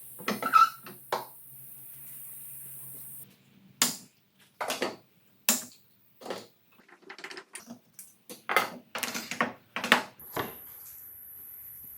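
Irregular sharp knocks and clicks of wood and hand tools being handled at a woodworking bench, about a dozen, some in quick clusters.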